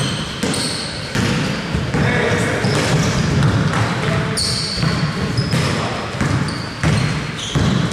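Basketball bouncing on a hardwood court during live play, repeated sharp thuds amid the general bustle of the game, with a few short high squeaks.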